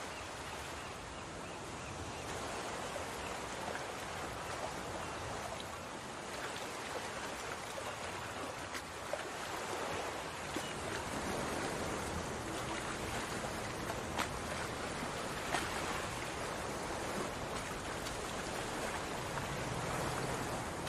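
Ginger-garlic paste frying in hot oil in a cooking pot: a steady sizzle with a few sharp pops.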